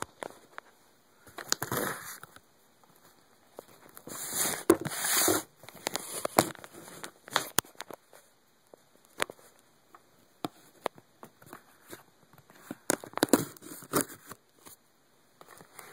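Cardboard shipping box being worked open by hand: irregular clicks, taps and scrapes on the cardboard and tape, with a few louder rasping bursts, the longest about four seconds in.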